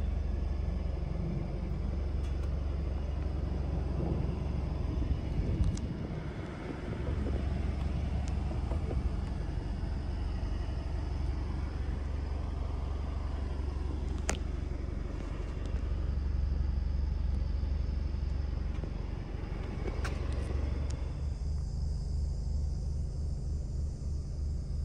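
The Ford Mustang EcoBoost's 2.3-litre turbocharged four-cylinder idling with a steady low rumble, with a few sharp clicks along the way. About twenty seconds in the higher background sound drops away, leaving a low pulsing idle.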